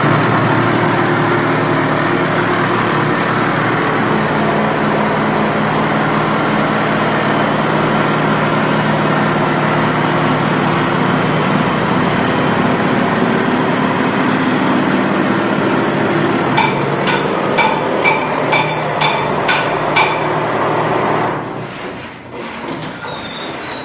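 TUPO automatic wall-plastering machine running as its trowel carriage climbs the mast, applying mortar to the wall: a loud, steady motor drone with mechanical rattle. Near the end comes a run of sharp knocks, about two a second, then the noise drops off sharply as the carriage reaches the top.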